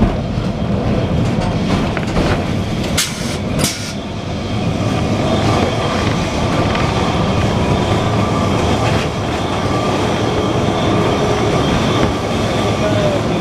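Lisbon 'remodelado' electric tram running, heard from the driver's cab: a steady rumble of wheels on rails, with two sharp clicks a little after three seconds in.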